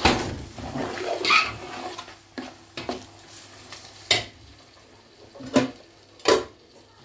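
Metal spoon stirring and scraping chopped vegetables in a large aluminium stockpot, a scraping shuffle for the first couple of seconds, then separate sharp clinks of the spoon against the pot.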